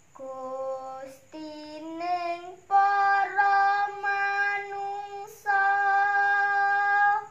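A young female voice sings Javanese macapat verse unaccompanied, in long held notes that step and slide upward between phrases. The last note is held for nearly two seconds and stops near the end.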